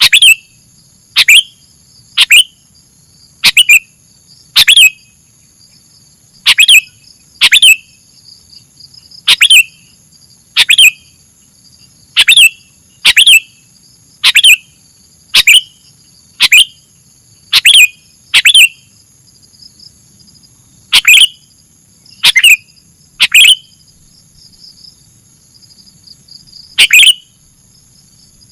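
Sooty-headed bulbul (kutilang) calling over and over: short, sharp, loud chirps about a second apart, with a few longer pauses. A steady high-pitched hum runs underneath.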